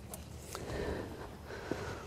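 Faint handling noise with a few light clicks as gloved hands spin a nut by hand onto the top stud of a new semi-truck shock absorber.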